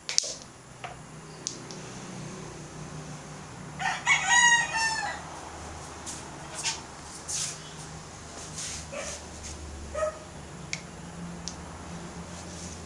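A rooster crows once, about four seconds in. Near the start there is a sharp click of a cue striking a ball on a small tabletop pool table, followed by scattered lighter clicks.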